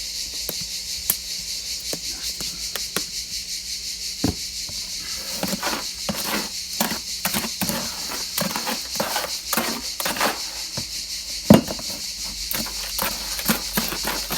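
Dry cement, sand and pigment mix being stirred in a bucket: a steady gritty scraping with clicks and knocks of the tool against the container, which become frequent about five seconds in, with one louder knock near the end.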